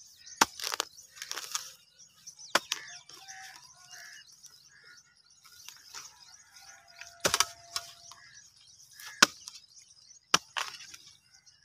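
A kahi, a long-handled digging spade, chopping into the soil of a field furrow: about five sharp strikes a second or two apart.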